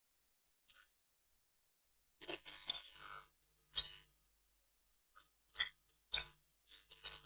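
Close-miked eating sounds of spicy noodles being chewed: short, wet mouth noises in bursts about every second, with silent gaps between.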